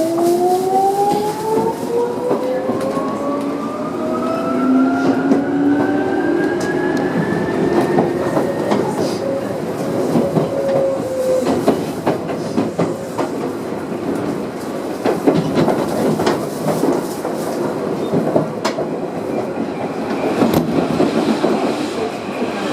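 Tokyu 8500 series electric train accelerating. Its traction motors whine in a tone that climbs steadily for the first eight or nine seconds, then give way to running noise with wheels clattering over rail joints.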